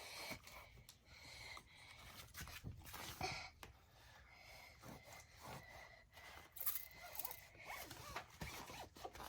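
Faint, scattered rubbing and scraping of a towel wiping excess tire shine off a car tire's sidewall.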